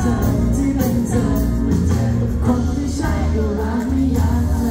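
A male vocalist singing a pop song into a handheld microphone over an amplified band backing with a steady beat.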